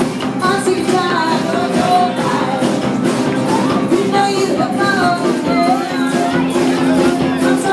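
Rock band playing live, with drums, a bass line and a singing voice carrying a wavering melody.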